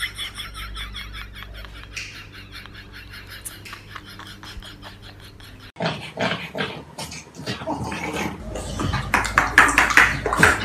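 Two dogs, a black French bulldog and a bully-type dog, make short, noisy vocal bursts at each other face to face while playing. The sounds start suddenly about halfway in and get louder toward the end. Before that there is only a quiet hum with faint clicks.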